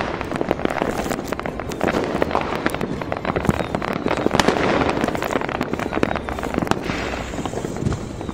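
Fireworks display: many aerial shells bursting at once, in a dense, continuous crackle of rapid pops.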